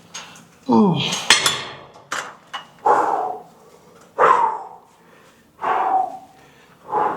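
A lifter's short grunts of effort, about one every second and a half, in time with dumbbell reps, with a sharp metal clank about a second in.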